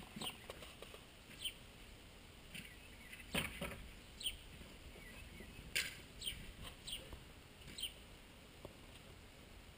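Outdoor ambience with small birds chirping: short calls, each falling in pitch, scattered irregularly. Two sharp knocks, about three and a half and six seconds in, are the loudest sounds.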